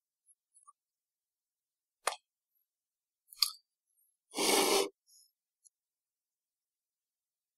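Two light metallic clicks from the stainless-steel and pyrex parts of a SubTank Mini tank being handled and fitted together, about two and three and a half seconds in, followed by a louder short rush of noise lasting about half a second.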